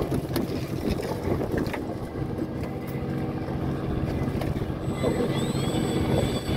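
Fishing boat's engine running steadily, a low, even hum. A faint high whine that rises in pitch comes in about five seconds in.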